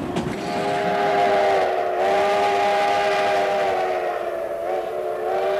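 Narrow-gauge steam locomotive's chime whistle blowing one long blast, a chord of several tones together. It starts about half a second in and holds, dipping slightly in pitch twice.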